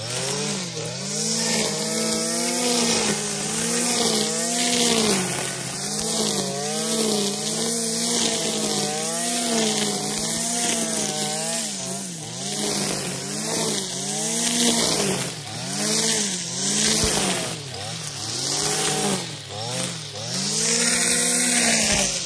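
Stihl FS 460 C brushcutter's two-stroke engine running at high revs while its trimmer line cuts grass. The engine pitch dips and recovers about once a second as the line bites into the grass on each sweep, with a steady hiss of line and cut grass.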